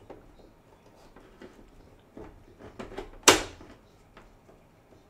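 Small plastic spring clamp being worked onto the seam of a plastic model hull: light clicks and plastic knocks, with one sharp snap a little over three seconds in as the clamp closes.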